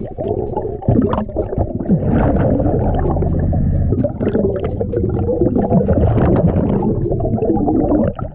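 Muffled underwater gurgling and rumbling of a diver's exhaled air bubbles while breathing from a battery-powered hookah air line, loud and continuous, with a few sharp clicks, dropping off suddenly at the very end.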